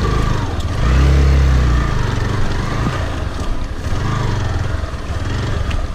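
Motorcycle engine working hard in deep mud, its note swelling about a second in and then easing and rising again with the throttle, over steady noise from wind and the churning wheels.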